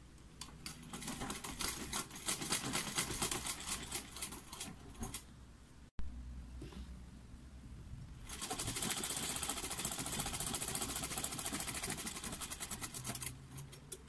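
Household straight-stitch sewing machine stitching a fabric strap. One run of stitching lasts from about half a second to five seconds in; after a short pause, a faster, steadier run follows from about eight to thirteen seconds in.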